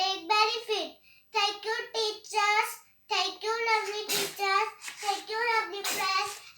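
A young girl's high voice in short, sing-song chanted phrases with held notes, in a small room.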